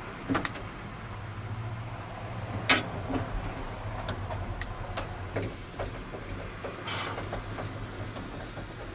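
Scattered clicks and taps of a screwdriver working against the metal window frame of a 1985 Ford F-150's door, the sharpest knock about three seconds in, over a steady low hum.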